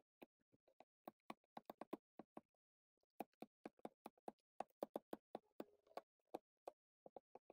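Rapid faint clicks and scrapes of a small tool knocking the plastic rivet heads off a laptop's metal keyboard plate, several a second with a brief pause near the middle.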